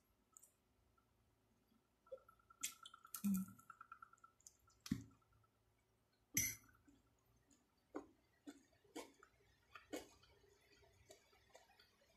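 Close-up eating sounds: a metal fork tapping and clicking against a plate as spaghetti is twirled, mixed with chewing and mouth clicks. About a dozen separate sharp clicks, the loudest about six seconds in.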